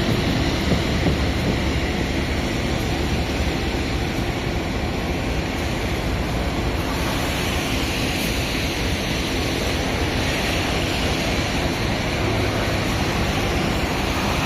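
Empty freight train rolling by: a steady rumble of wheels on rail.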